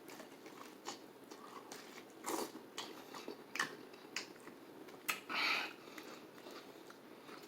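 A person eating KFC fried chicken dunked in cheese sauce, biting and chewing with scattered short crackles and mouth noises.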